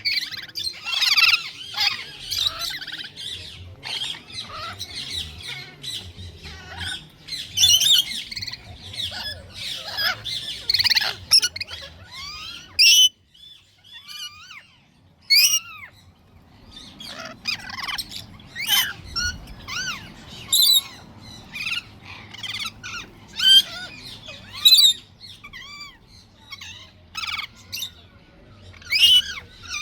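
A flock of lorikeets screeching and chattering, many short, sharp calls overlapping, with a brief lull about halfway through.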